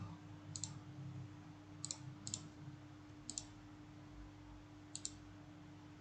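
Computer mouse clicking: five quick clicks spread over a few seconds, each a close press-and-release pair, over a faint steady hum.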